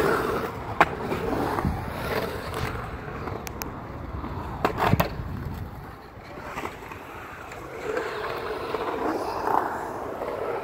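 Skateboard wheels rolling on a concrete bowl as the rider carves its walls: a steady rolling rumble that swells and fades, loudest near the start and again near the end. A sharp knock comes about a second in, and a quick cluster of knocks a little before halfway.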